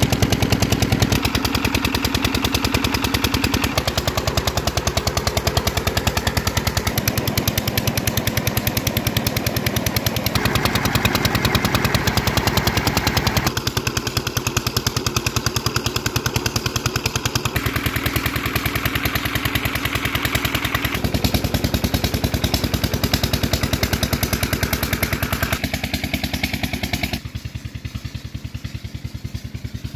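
Tubewell engine running with a rapid, even knocking beat, its tone shifting abruptly every few seconds and dropping in level near the end.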